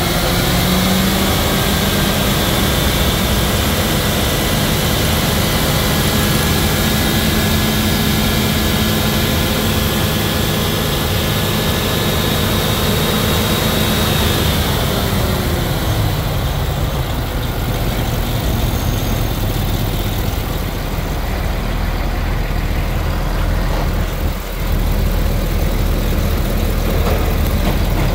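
2011 GM/Chevrolet 6.0L gasoline V8 running at idle, a steady engine sound with a whine that drops in pitch and fades about halfway through.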